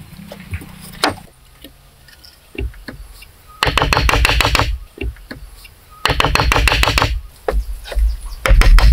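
A hammer striking wooden logs: a few single knocks, then two runs of very quick blows about a second long each, a few seconds in, and heavier blows near the end, as logs are driven into place in a log wall.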